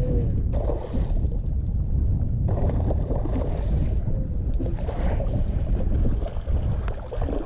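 Wind buffeting the microphone: a steady low rumble with gusts that come and go.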